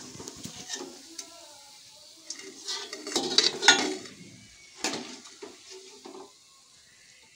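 Metal spoon clinking against a steel plate and kadhai as deep-fried batata vadas are lifted out of the oil and set down, with a faint sizzle of hot oil underneath. The clinks are loudest about three to four seconds in, with another near five seconds.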